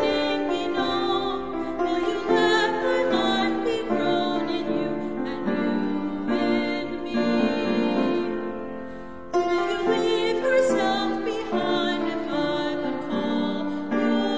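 A woman singing a hymn solo, with held notes and vibrato. The singing dies away about eight seconds in and starts a new phrase at full strength just after nine seconds.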